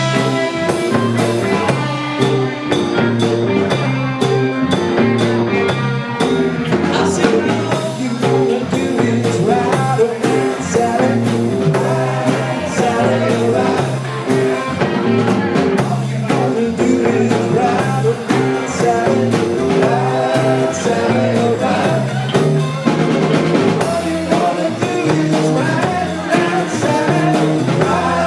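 Live band playing vintage rock and roll: electric guitar, a bass line stepping from note to note, and a steady drum beat, with singing.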